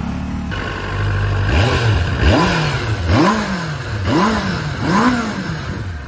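Benelli SRK 600's 600 cc inline-four engine on its stock exhaust, idling steadily, then blipped through about five quick throttle revs, each rising and falling back, roughly one a second.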